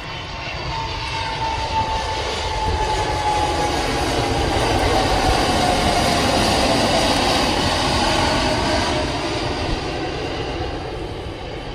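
Cathay Pacific cargo jet passing by: the engine noise swells to a peak about halfway and then fades, with an engine whine that falls steadily in pitch as it goes past.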